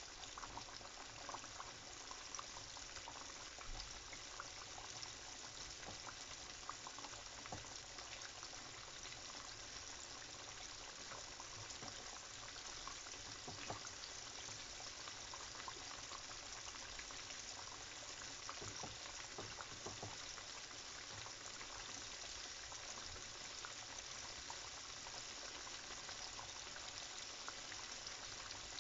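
Flour-coated chicken pieces deep-frying in hot oil: a steady sizzle with small scattered crackling pops.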